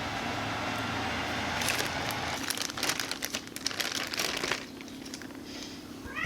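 Crinkling and crackling of something being handled, dense for about three seconds in the middle, then a cat starts to meow at the very end.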